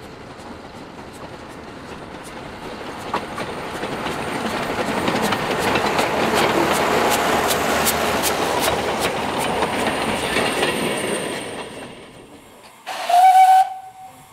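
A line of narrow-gauge locomotives, including the Alco steam tank engine Mountaineer, running past with their wheels clicking over the rail joints. The sound builds as they approach, peaks as they pass and fades away. Near the end comes a short, loud steam-whistle blast.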